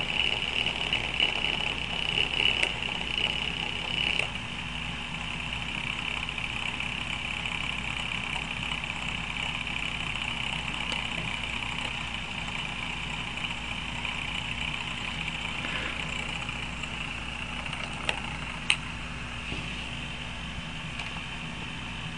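Homemade simple DC motor running: its wire coil spins on an axle resting in paper-clip supports over a magnet, giving a steady whirring buzz that eases slightly after about four seconds. Two short sharp clicks near the end.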